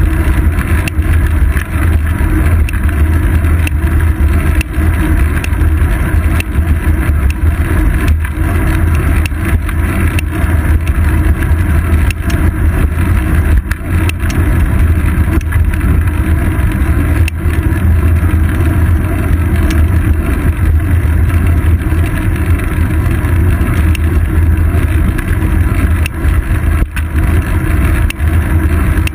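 Steady loud rumble of wind buffeting and road vibration picked up by a seat-post-mounted GoPro Hero 2 on a moving bicycle, with scattered brief knocks from bumps in the pavement.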